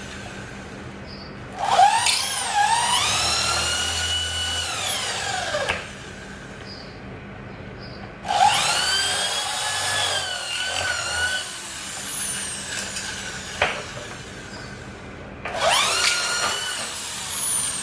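Handheld power drill run in three bursts, its whine rising as the motor spins up, holding steady, then falling as it winds down. A single sharp click comes between the second and third bursts.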